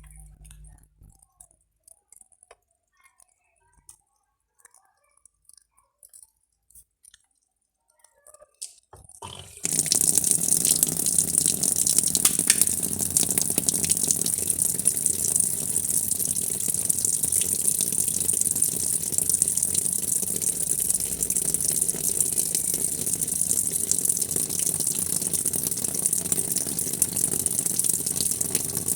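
A few faint clicks, then about ten seconds in a steady rush of running water starts suddenly and keeps going.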